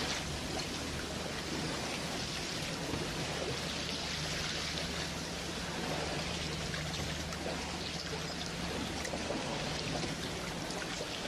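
Steady rushing, trickling water, with a low steady hum underneath that fades out about nine seconds in.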